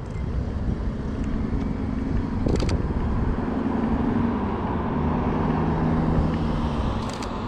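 Road traffic: a car's engine hums as it passes, swelling through the middle and easing off near the end. A Canon EOS R camera shutter clicks twice in quick succession about two and a half seconds in, and again near the end.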